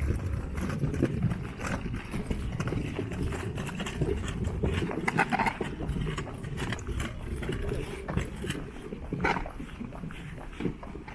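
Footsteps of a person walking along a park path, a steady run of short crisp steps over outdoor background noise.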